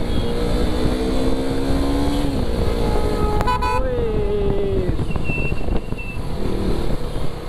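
Sport motorcycle engine running under throttle, its pitch climbing and holding, then dropping about two and a half seconds in, with rushing wind noise underneath. A short vehicle horn toot about three and a half seconds in.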